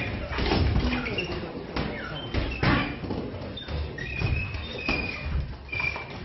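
Boxing sparring: gloved punches landing and feet shuffling on the ring floor, as scattered knocks and thuds with a few short high squeaks.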